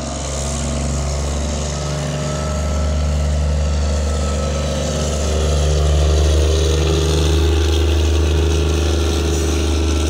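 Diesel locomotive engine running with a steady low drone as it hauls passenger coaches past, growing louder about six seconds in as the locomotive draws level.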